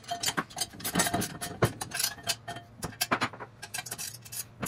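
Quick, uneven metallic clicks and clinks of steel bolts, nuts and clamp brackets being fitted and tightened onto a dump trailer's axle frame, about five or six a second.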